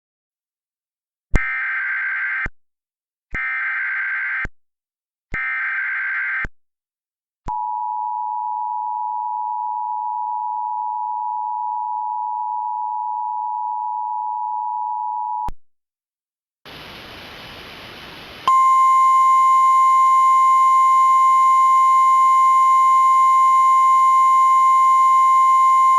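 Emergency Alert System tones for a tornado warning: three roughly one-second bursts of warbling SAME header data, then the two-tone EAS attention signal held steady for about eight seconds. After a short burst of hiss, a louder single steady alert tone near 1 kHz sounds for the last several seconds.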